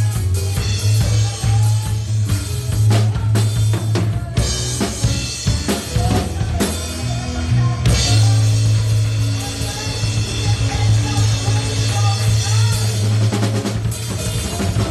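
Drum kit played hard along to a recorded praise-and-worship song: bass drum, snare and cymbals driving over the song's steady bass line and melody.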